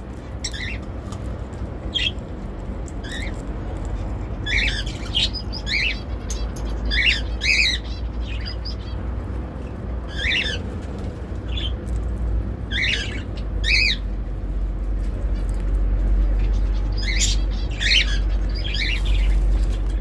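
Indian ringneck parrot giving short chirps and squawks, singly and in quick clusters, over a steady low hum.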